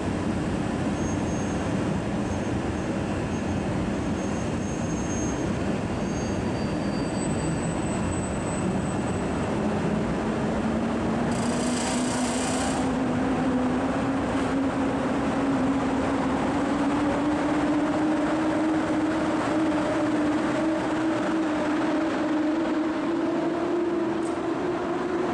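EP08 electric locomotive hauling a passenger train moving off and passing slowly along an underground platform: a steady rumble with a whine that rises in pitch from about ten seconds in as it gathers speed. A short hiss of air comes around twelve seconds in.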